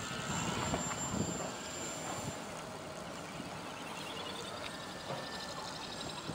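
Faint, steady drone of a radio-controlled model autogyro's motor and propeller as it flies away, easing slightly after about two seconds.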